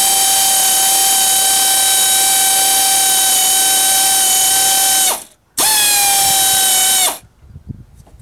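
Pneumatic air ratchet spinning a fastener with a steady high whine, in two runs: a long one that stops about five seconds in, then a short one that cuts off about seven seconds in.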